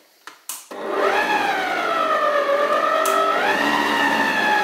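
Electric stand mixer with a wire whisk running, mixing whipped cream and Greek yogurt: a steady motor whine that starts a little under a second in, just after two short clicks. Its pitch sags slowly and rises again about three and a half seconds in.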